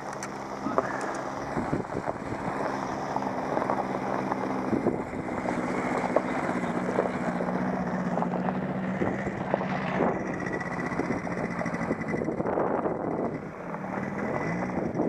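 A motor vehicle's engine running close by, holding a steady note that dips and rises briefly near the end.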